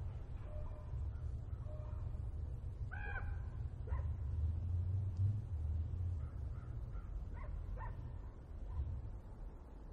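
Rural outdoor ambience: scattered bird calls, with a louder, harsh call about three seconds in and a few more near the end, over a steady low rumble.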